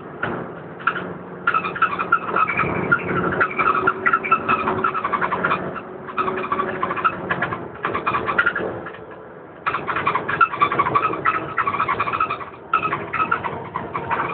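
Inside a DAF DB250LF double-decker bus with an Alexander ALX400 body on the move: the engine drones steadily underneath a fast chattering rattle from the body fittings. The rattle comes and goes in stretches of a few seconds.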